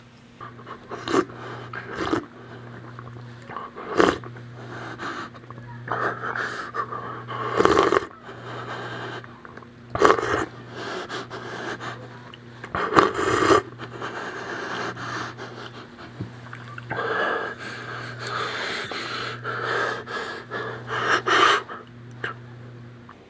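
A man panting, wheezing and grunting with effort in irregular bursts, with rough scraping at dusty rubble. A low hum pulses on and off underneath, about once a second.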